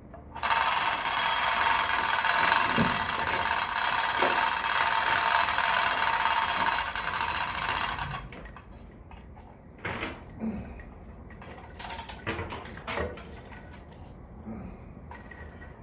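Steady mechanical running noise for about eight seconds that cuts off, then scattered clicks and knocks, as the new elevator governor rope is pulled through.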